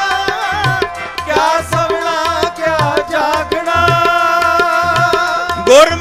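Gurbani kirtan: male voices singing a devotional melody over harmonium, with tabla keeping a steady beat of about two bass strokes a second.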